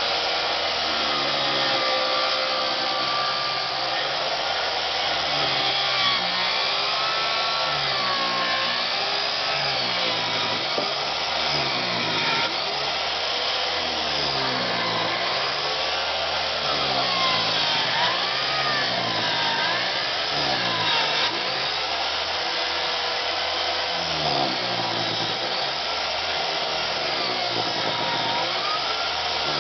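Circular saw ripping a 2x4 lengthwise, its motor running steadily with the pitch rising and falling over and over as the blade works along the cut.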